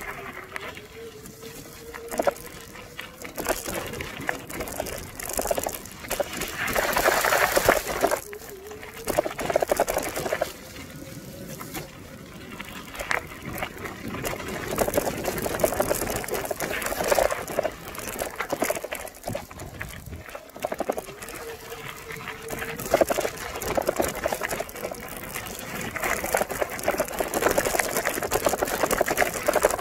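Bicycle riding over a rough, wet gravel track: tyres crunching and the bike rattling over loose stones in uneven surges, with water splashing up from the puddles.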